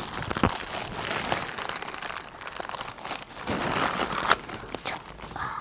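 Plastic wrapping crinkling and rustling as it is pulled off a bottle: a dense run of small crackles with a few sharper ones.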